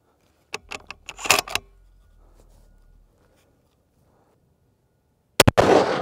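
A quick run of clicks and clatter about a second in, then a single shot from a .338 Lapua Magnum Ruger Precision Rifle with a muzzle brake about five and a half seconds in, echoing as it dies away.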